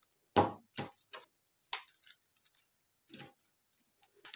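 Plastic rings of a folding scarf ring hanger clicking and clacking against each other as the panel is folded up by hand. There are several separate sharp clicks, the loudest about half a second in.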